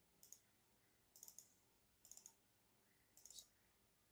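Faint computer mouse clicks, four short groups about a second apart, each a quick double or triple click.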